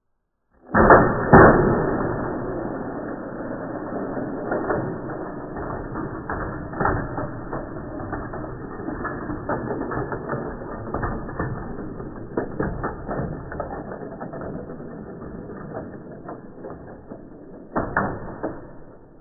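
Die-cast Matchbox toy cars clattering on a plastic Cyclone 5000 track, heard slowed down in slow-motion playback. A sudden loud clatter about a second in gives way to dense rattling and clicking that slowly fades, with another burst of clatter near the end.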